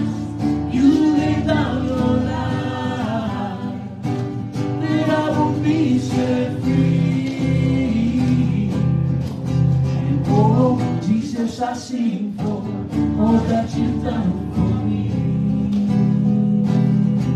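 Live worship song: singing accompanied by a strummed acoustic guitar.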